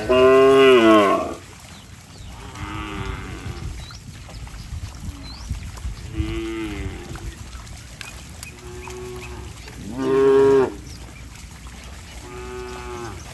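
Cattle mooing: about six moos a couple of seconds apart. The first, at the very start, and one about ten seconds in are loud; the others are fainter.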